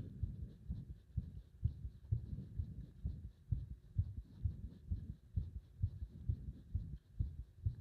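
Human heartbeat: a steady run of low, dull thuds, roughly one to two a second. The uploader presents it as a heart close to stopping under compression.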